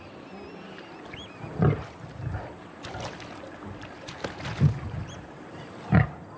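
Young male lion growling and snarling in about four short, deep bursts: a threat display at small crocodiles contesting a carcass. Faint bird chirps sound in the background.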